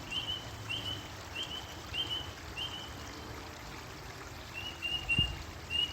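A bird repeating a short high chirp about every half second, falling silent about halfway, then resuming in a quicker run near the end, over a low, steady wash of water.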